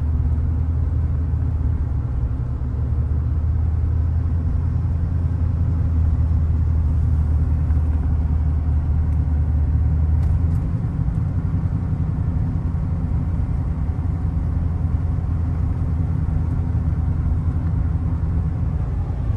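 Steady low rumble of a moving vehicle's engine and road noise. The deepest part of the drone drops away a little past halfway through.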